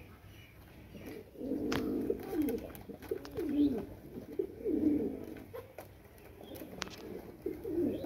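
Pigeon cooing: a run of low, rolling coos repeated in short bouts, pausing for a couple of seconds before starting again near the end.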